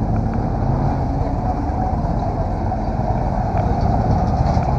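A car running with a steady low rumble and road noise, as heard from inside the cabin.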